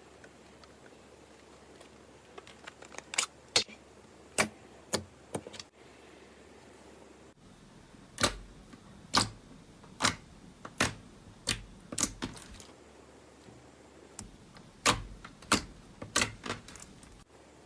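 Slime being pressed and worked by hand, giving a series of sharp clicking pops about once a second, with short pauses between groups.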